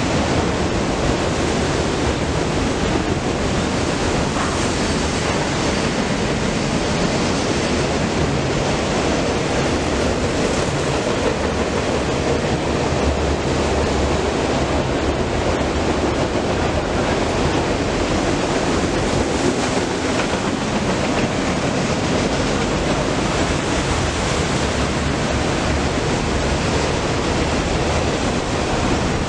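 Freight train cars rolling past directly below: a steady, even rush of wheels on rail.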